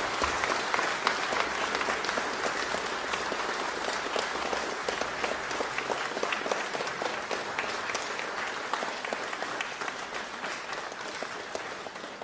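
An audience applauding, a dense patter of many hands clapping that slowly dies away.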